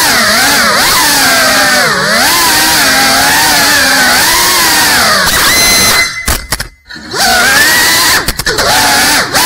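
GEPRC CineLog 35 FPV cinewhoop's brushless motors and ducted propellers whining, the pitch rising and falling constantly with the throttle. The motors cut out for about a second about six seconds in, and drop out briefly again near the end, before spinning back up.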